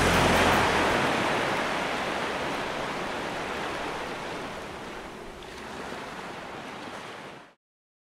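Sea waves rushing, a steady wash of noise that fades slowly and cuts off suddenly about seven and a half seconds in.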